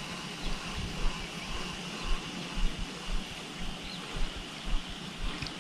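Outdoor ambience: wind buffeting the microphone in irregular low rumbles over a steady high hiss, with a few faint short chirps.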